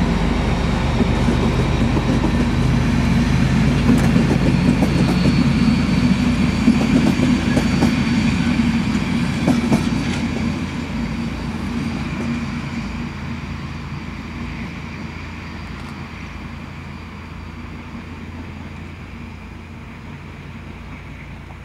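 A long passenger train's coaches roll past at speed with a steady rumble of wheels on rail and a few sharp clacks. From about ten seconds in, the sound fades away as the last coaches recede.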